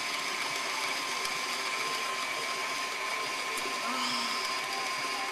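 KitchenAid Artisan stand mixer running steadily with a constant whine, its beater churning thick cookie dough in the steel bowl.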